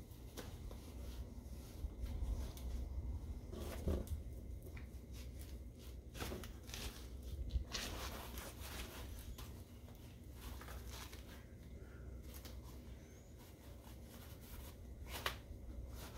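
Scattered rustles, clicks and scrapes of fabric and plastic fittings being handled and fastened on a Wonderfold W4 Elite stroller wagon during assembly, with a few sharper clicks spread through. A steady low rumble runs underneath.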